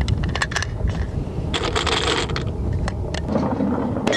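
.223 cartridges being pressed one by one into a rifle magazine: a quick run of small clicks, then a rustling scrape about two seconds in. Wind rumbles on the microphone throughout.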